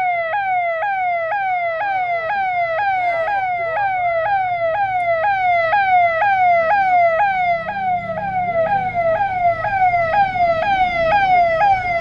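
Electronic siren sounding a loud, steady cycle of short falling sweeps, about two a second, over a low background rumble.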